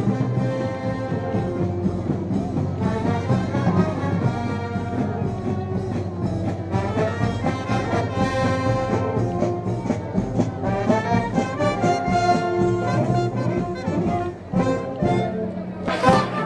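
Brass band playing Moros y Cristianos festival music, trombones and trumpets carrying held melodic lines over a regular beat. A sharp crash comes near the end.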